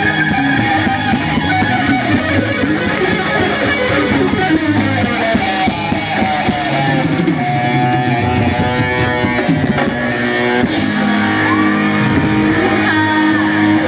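Live rock band playing loudly: electric guitar over bass guitar and drum kit.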